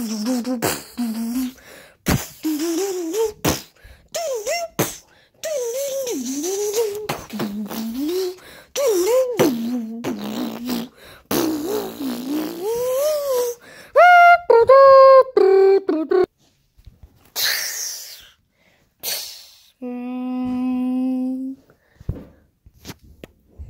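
A child's voice making mouth sound effects for a hand-held toy: wavering hums and engine-like drones that slide up and down in pitch, broken by many clicks and pops, with a short run of stepped falling notes a little past halfway and a steady buzzing hum near the end.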